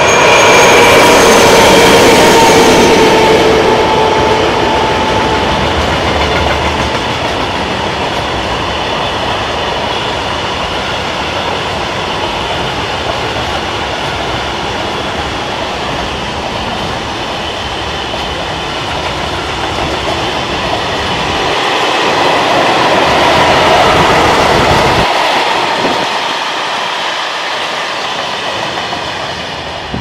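A pair of class 753 diesel-electric locomotives passes, their engines droning and dropping slightly in pitch as they go by, and they are loudest in the first few seconds. A long train of open freight wagons follows, rolling and clattering steadily over the rails. The noise swells again about three-quarters of the way through, then fades as the end of the train moves away.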